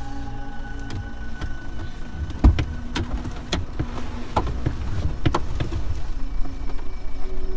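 Renault car being brought to a stop: a steady low rumble from the car, with a run of clicks and knocks, the loudest a thump about two and a half seconds in.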